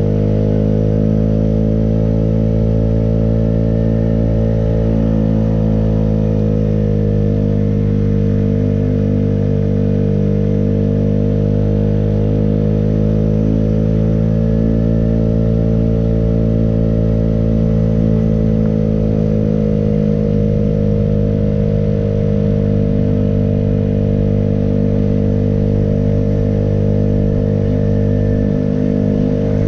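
Small motorbike engine running steadily at a cruise while riding, its pitch rising and falling slightly a couple of times.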